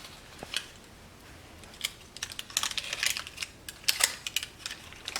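Irregular light clicks and taps of utensils against plates and a baking dish while food is served, in small flurries with short gaps.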